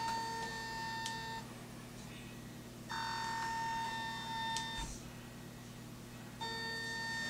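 Yongnuo YN-560 II speedlights being switched on one after another. Each gives a steady high-pitched whine lasting about two seconds while it charges up to ready. The first whine ends just over a second in, the second runs from about three to five seconds in, and the third starts near the end, with a small click near the end of each of the first two.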